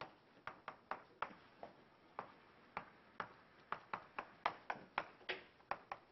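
Chalk tapping against a chalkboard while writing: a faint run of sharp, irregular taps, about four a second.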